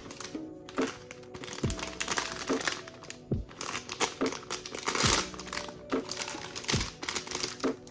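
Plastic packaging crinkling as it is handled, over background music with a steady beat.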